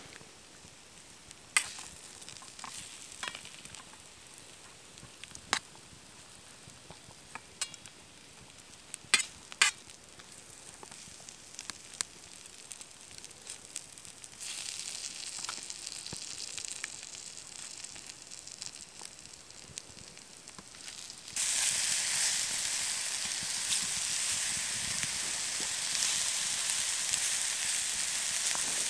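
Sliced sausage and mushrooms frying in butter in a thin titanium pan over a campfire. A metal spoon clinks sharply against the pan now and then. Partway through the pan begins to sizzle, and the sizzle turns much louder and steady a few seconds later.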